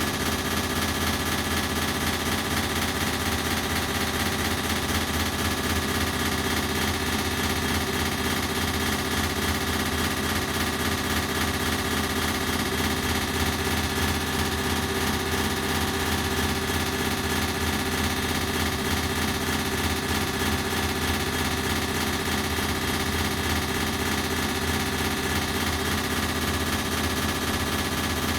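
Ceiling fan running steadily, processed with an echo effect: a constant mechanical hum with a fast, even pulsing chatter that does not change.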